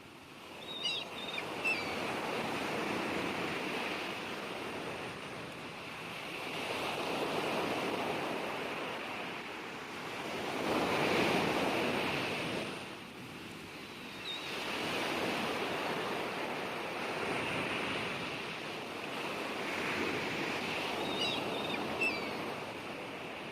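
Sea waves breaking on the shore, the surf swelling and easing back every few seconds, with the loudest wave about halfway through.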